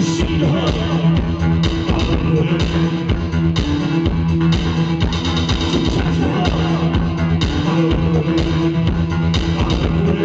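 Live band music: a steady drum beat under sustained low synth or bass notes, with guitar, recorded from the audience.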